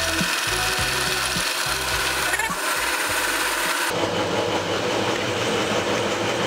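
Heavy drill press running at low speed, a 2 mm bit cutting into solid brass with a steady scraping noise. About four seconds in the sound changes abruptly to a duller, steadier noise.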